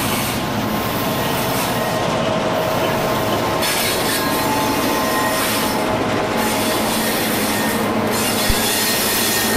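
HO scale model train passing close by: the two diesel switcher models' motors and the freight cars' wheels running on the rails, a steady rolling noise with a faint whine. A single click sounds near the end.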